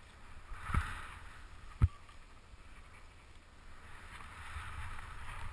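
Skis running through deep powder snow: a swishing hiss that swells about a second in and again near the end, over a steady low rumble. Two sharp knocks about a second apart stand out as the loudest sounds.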